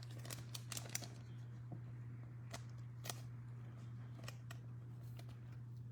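Trading cards being handled and flipped through: a scatter of faint, irregular clicks and light snaps over a steady low hum.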